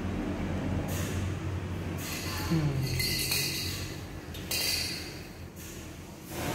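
Soft, intermittent rustling, several brushes of about half a second each, over a steady low hum.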